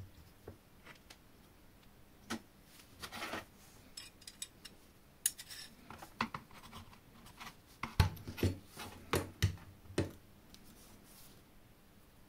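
Titanium saw-frame parts handled by hand: a turned metal sleeve slid on the bar and the pieces fitted together, with light metal-on-metal clicks, scrapes and knocks, the loudest a cluster about eight to ten seconds in.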